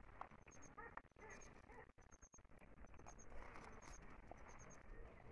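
Near silence: faint outdoor ambience with soft, high chirps repeating about twice a second and a few small clicks.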